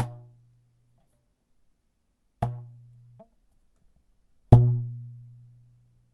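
Cartoon boing sound effect, three separate takes about two seconds apart: each a sharp twang followed by a low ringing tone that dies away, the second cut off short.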